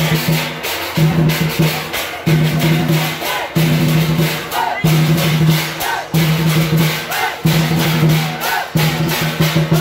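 Percussion music of drums and cymbals playing a fast, driving beat, with a low held note coming back in stretches of about a second.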